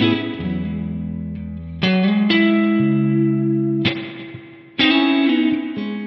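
Electric guitar played through a Line 6 HX Stomp XL modeller preset. Chords are struck about every second or two and each is left to ring.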